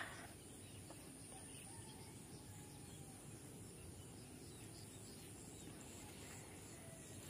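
Very quiet open-field ambience: a steady high insect hum with a few faint, distant bird chirps.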